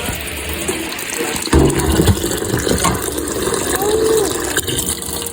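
Kitchen tap running cold water over boiled saltfish in a pot, a steady rush of water that gets louder and heavier about a second and a half in.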